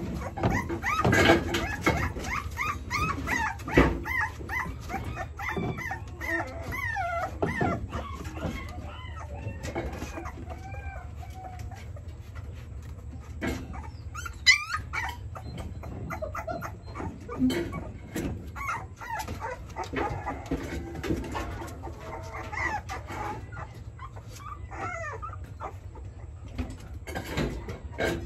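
Young puppies whimpering and squeaking in many short, high cries that rise and fall, with scattered clicks and taps between them. The cries come thickest in the first dozen seconds and again about three quarters of the way through.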